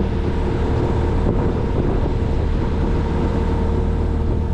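Skid steer engine running steadily under load, a constant drone with a steady hum.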